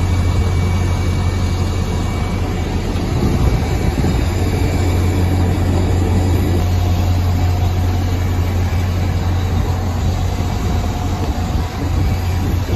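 Steady low drone of aircraft and ground machinery running on an airport apron, a constant deep hum under a wash of mechanical noise.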